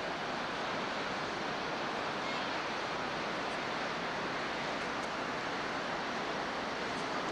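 Steady rushing wind noise on a camcorder microphone from riding in a moving vehicle, even in level throughout.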